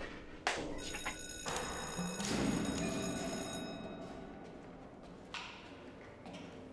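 An electric bell ringing steadily for about three seconds, starting just after a thud. There is a single knock a couple of seconds after the ringing stops.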